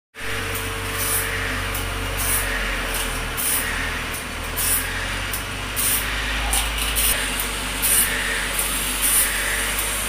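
Sawmill machinery running steadily: a low engine hum under a constant tone, with short hissing bursts every half second to second.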